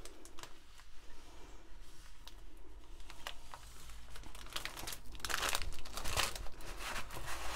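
Plastic packaging crinkling and rustling as a plastic-covered diamond painting canvas and a bundle of bagged drills are handled, with a louder burst of crinkling about five seconds in.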